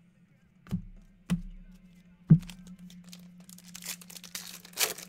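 Three dull thumps in the first two and a half seconds, the third the loudest. Then the foil wrapper of a Contenders Draft basketball card pack crinkles and tears as it is ripped open, loudest just before the end.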